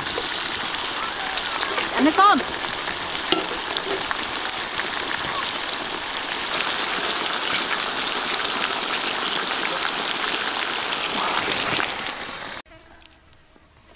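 Chicken pieces and mushrooms sizzling in hot oil in a wok, a steady hiss with small crackles and spits. It cuts off sharply near the end.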